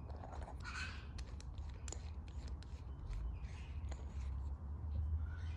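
Light clicks and soft scraping of a small metal lawn mower carburetor being handled, with fingers working at the bolt on its float bowl, over a steady low rumble.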